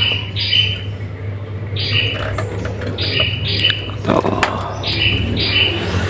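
A bird chirping repeatedly in pairs of short, high notes, each note stepping down in pitch, about four pairs in six seconds. About four seconds in, there is a short knock from the wooden bird cage being handled.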